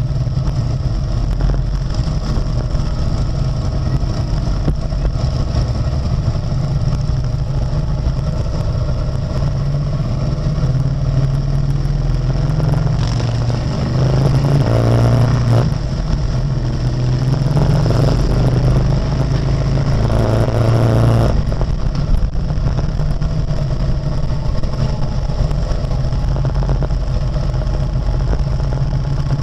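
Harley-Davidson Road King's V-twin engine running at low speed, with other motorcycle engines close by. It swells louder twice for a couple of seconds around the middle.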